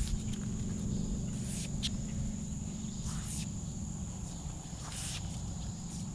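Insects trilling steadily on one high note over a low rumble, with a few short scraping swishes as the magnet-fishing rope is hauled in over the concrete bridge rail.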